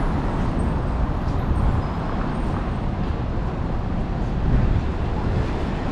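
Steady city-street traffic noise: motor vehicles passing on a busy downtown street, an even, low-pitched rumble.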